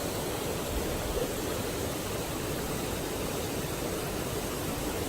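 Steady rushing of flowing stream water, an even noise with no distinct splashes.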